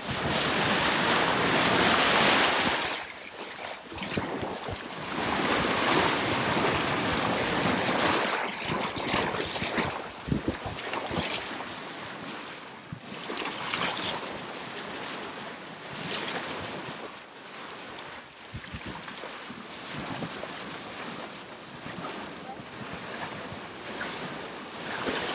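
Sea water rushing and splashing along a moving sailboat's bow, rising and falling in surges and loudest in the first couple of seconds, with wind buffeting the microphone and scattered sharp taps.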